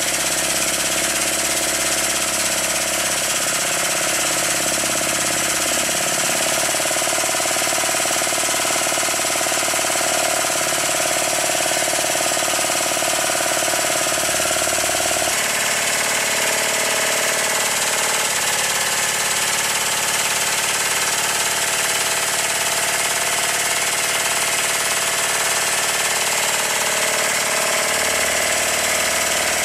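Restored circa-1896 model steam engine with its new crankshaft running flat out in a high-speed "warp speed" test: a loud, steady, fast mechanical running sound with hiss over it, the tone shifting abruptly about halfway through. It holds together at full speed: the rebuild passes the test.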